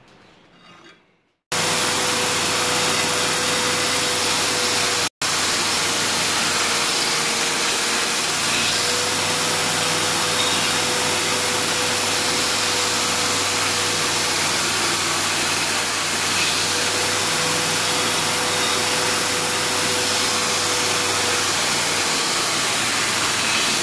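2x72 belt grinder running with a steady hum while a forged steel knife blade is rough-ground against its worn-out belt, the bevel pressed in with a wooden push stick, giving a loud, steady grinding hiss. It starts abruptly after a moment of near silence, with a brief break about five seconds in.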